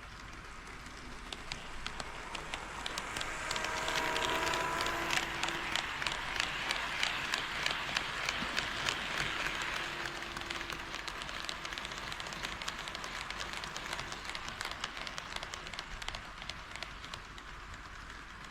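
HO scale model train, a KATO D51 steam locomotive model, running past on KATO Unitrack: a rolling rush with rapid clicking of wheels over the rail joints that grows louder, peaks, then slowly fades as it goes by. A brief whine comes about four seconds in.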